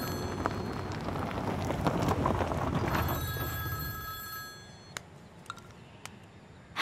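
Mobile phone ringtone ringing over a steady rush of street traffic noise. The ringing stops about four and a half seconds in, followed by a few faint clicks.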